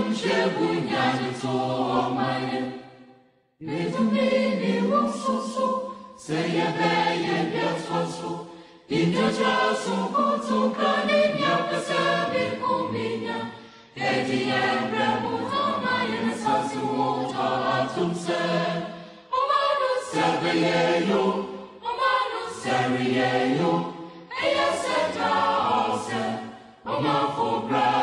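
Choral music: a group of voices singing in phrases, with short breaks between them.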